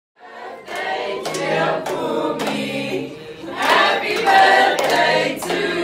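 A group of people singing together in chorus, with hand claps keeping a rough beat about every half second.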